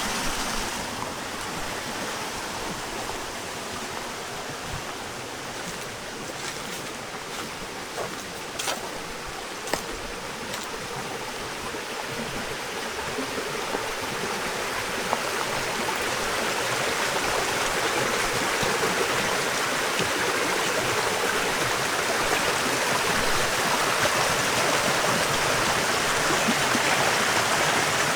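Clear spring-fed stream flowing steadily, louder from about halfway on, with a few light ticks near the middle.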